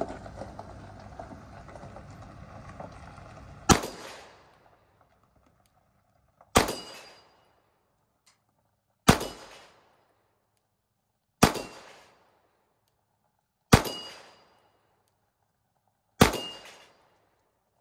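A 9mm pistol fired in six slow, aimed shots, about two and a half seconds apart, each with a short echoing tail.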